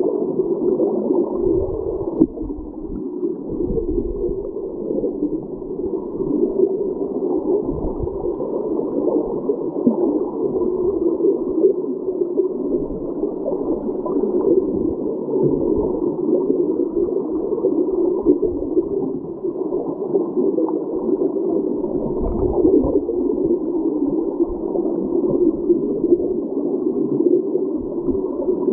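Creek water rushing, heard underwater through a submerged camera: a steady, muffled churning, with scattered low thumps.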